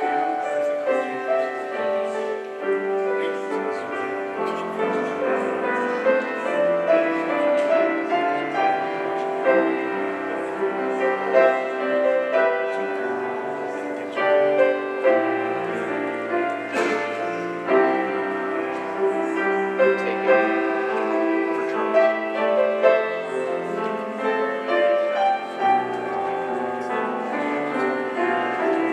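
Grand piano playing a slow piece, with notes held and overlapping one another.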